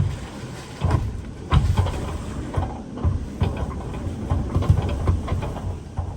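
Typhoon-force wind gusting and buffeting the microphone: a loud, uneven low rumble that surges in sharp gusts, strongest about a second and a half in and again near the five-second mark.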